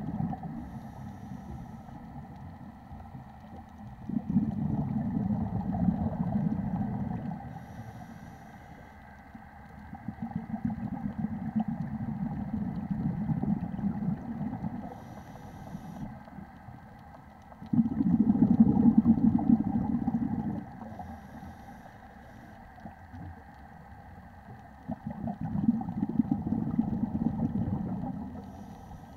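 Scuba breathing heard underwater through a regulator: a low rumbling gush of exhaled bubbles four times, each lasting about three seconds, roughly every seven seconds, with a brief faint hiss between them.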